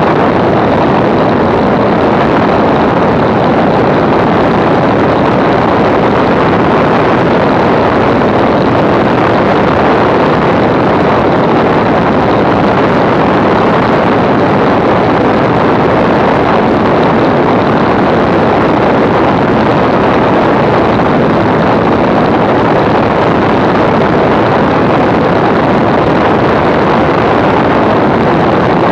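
Zlin Z-326 Trener Master's six-cylinder Walter Minor engine running steadily in cruise flight, mixed with heavy wind noise rushing over an outside-mounted camera microphone.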